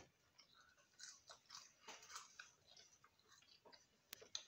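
Faint, close chewing and crunching of fried food, with small irregular crackles of food being handled, and one sharp click about four seconds in.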